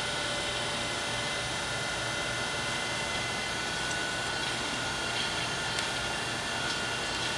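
Okamoto 820A hydraulic surface grinder running with its grinding wheel spinning and the hydraulic system on to drive the table: a steady machine whine made of several held tones over a constant hiss.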